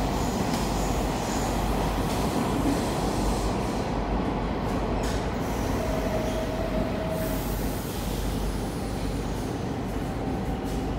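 Rome Metro train running through a tunnel, heard from inside the car: a steady rumble of wheels and running gear. A faint squeal lasts about a second, around six seconds in.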